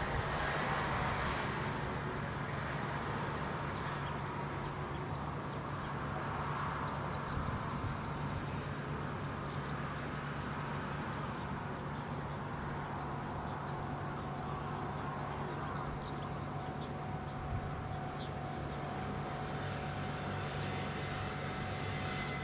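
Rice combine harvester's engine running steadily with a constant low hum.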